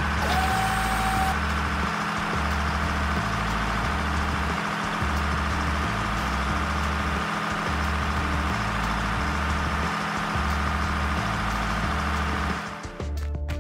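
Heavy truck engine running steadily as the truck drives, with a repeating low pulse; it cuts off near the end.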